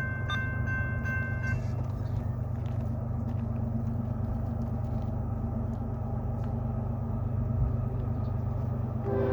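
Steady low rumble of the approaching CSX freight train's diesel locomotives. A high steady tone sounds during the first second and a half, then stops.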